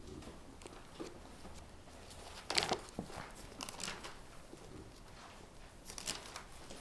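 Thin Bible pages rustling as they are leafed through: a few soft papery swishes, the loudest about two and a half seconds in and several more near the end.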